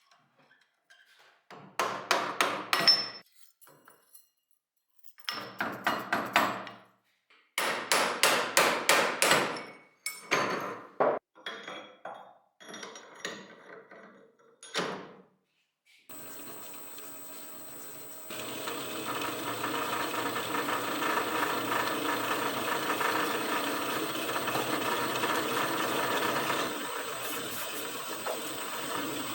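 Several bursts of rapid sharp knocks, like quick hammer taps, with short pauses between them. About halfway through, the drill press's motor starts running steadily with a thin high whine, getting louder a couple of seconds later.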